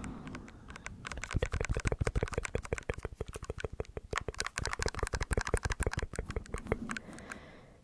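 Rapid scratching and rubbing on a fluffy microphone windscreen: a dense run of quick scratchy strokes with a deep rumble. It starts about a second in and stops near the end.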